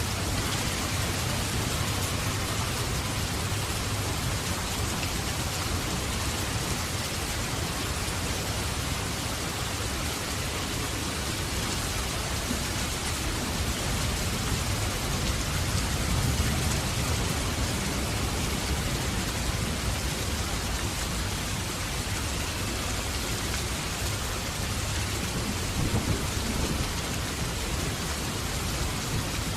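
Heavy rain falling steadily, with low rolling thunder rumbling underneath that swells around the middle and again near the end.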